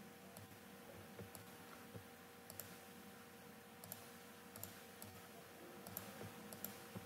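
Computer mouse clicking, a dozen or so faint sharp clicks scattered irregularly, several in quick pairs, over a faint steady hum.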